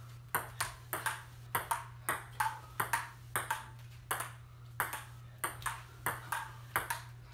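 Table tennis rally: a ping-pong ball clicking off the paddles and the table about four times a second.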